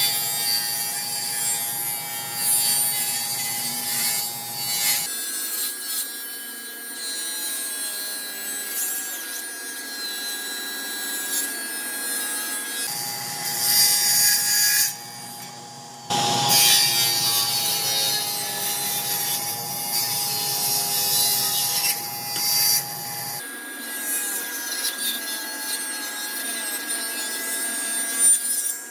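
Table saw ripping spalted maple: a steady blade whine over the rasp of the wood being cut, changing abruptly a few times between passes.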